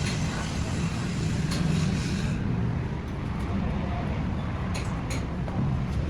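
Steady low engine rumble, with a few sharp clicks, two of them close together near the end.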